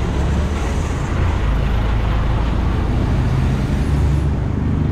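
Diesel engine of a route minibus passing close by, a steady low rumble over general street traffic noise.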